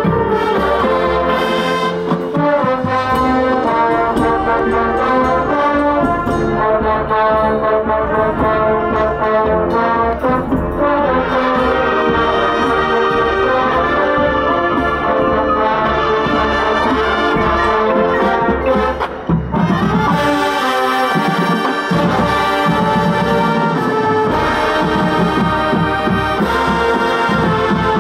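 Marching band playing a brass-led arrangement: trumpets and trombones over drumline and marimbas, with a steady beat. The music dips briefly about two-thirds of the way through.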